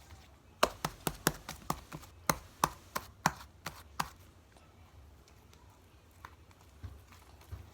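Fluffy slime being pressed and worked by hand, giving a quick uneven run of about a dozen sharp popping clicks over roughly three and a half seconds, then it goes quiet.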